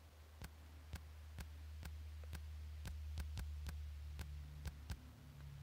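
Key-press clicks of a password being typed on a smartphone's touchscreen keyboard, a sharp click about every half second, over a steady low hum.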